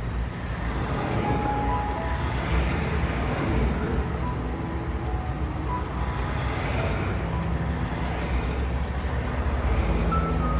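Highway traffic: a steady low rumble of cars and trucks, with tyre hiss swelling and fading as vehicles pass, about three times.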